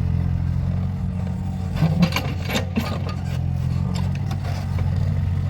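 Mini excavator's engine running steadily under work, with a few short knocks and scrapes about two seconds in.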